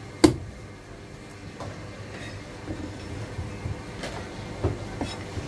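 A Chinese cleaver chopping through Chiu Chow braised goose onto a cutting board: one sharp, hard chop about a quarter-second in, then a few lighter knocks near the middle and toward the end, over a steady mechanical hum.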